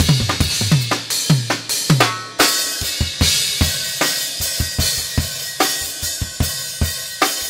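Acoustic drum kit played solo. For about the first two and a half seconds it is rapid strokes on a low drum, each dropping in pitch. Then comes a loud cymbal crash, with fast bass drum and snare hits going on under ringing Zildjian cymbals.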